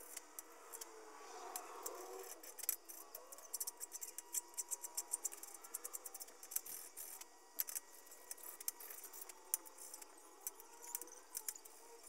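Light, irregular scraping and clicking of a small hand tool on metal as burrs are knocked off the edges and screw holes of a fuel sump.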